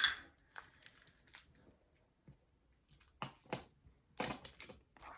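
Small plastic diamond-painting accessories being handled and put away: a sharp click at the start, then scattered light clicks and clacks, with a brief lull in the middle and a cluster of sharper clicks near the end.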